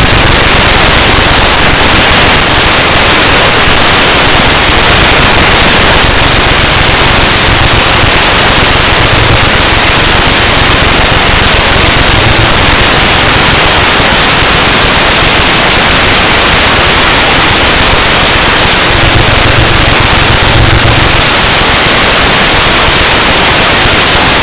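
Loud, steady wind noise buffeting a small camera's microphone, heard as a harsh, even hiss close to full scale.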